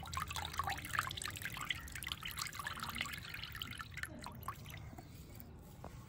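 Milky liquid squeezed by hand from a cloth bundle of wet ground thandai paste, trickling and dripping into an earthen bowl that already holds liquid. This is the cloth-straining stage that draws the liquid out of the paste. The dribbling is dense at first and thins out in the second half.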